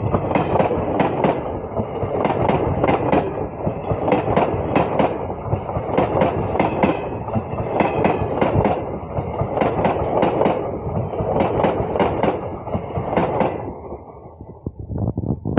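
Indian Railways passenger train's blue coaches passing close at speed, with a dense rumble and wheels clicking in regular groups over the rail joints. The rumble drops away about fourteen seconds in as the last coach passes, leaving a few fading clicks.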